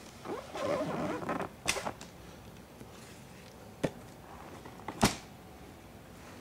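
Handling of a hardshell guitar case: a short rustle, then a few sharp knocks. The loudest knock, about five seconds in, comes as the case lid shuts.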